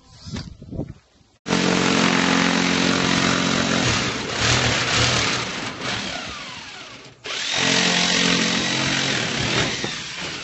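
Power drill drilling the heads off rivets in a caravan's cladding panel. It runs in two long stretches, starting abruptly about a second and a half in and stopping briefly about seven seconds in before starting again.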